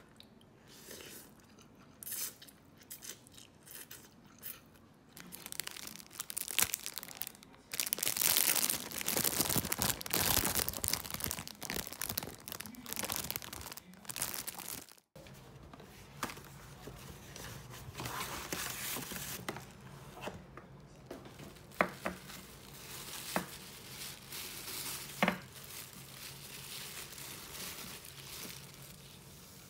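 Packaging being torn open and crumpled, loudest in the middle of the first half. After a cut it gives way to a low steady hum with a few light knocks and a short ringing clink.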